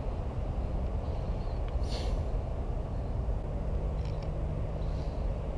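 Steady low outdoor rumble with a faint hum, and a brief rustle about two seconds in.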